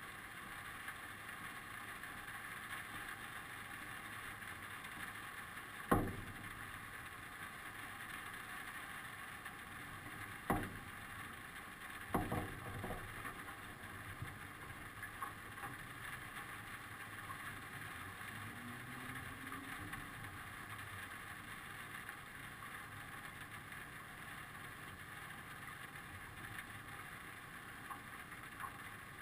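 Faint steady hiss with no engine running, broken by a few sharp knocks: one about six seconds in (the loudest), another near ten seconds, and a short run of knocks around twelve to thirteen seconds.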